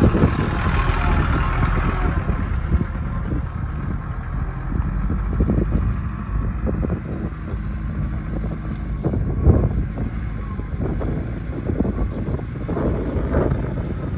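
Mitsubishi light truck's diesel engine running steadily under a heavy load of sugarcane as it pulls away along a rough dirt track, with a single knock about two-thirds of the way through.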